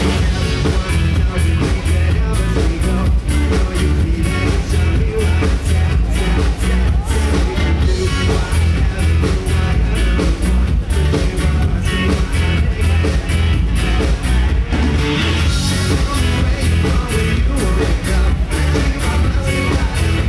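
Live band playing loud, upbeat dance music: drum kit keeping a steady beat under heavy bass, electric guitar, and a male singer on a handheld microphone.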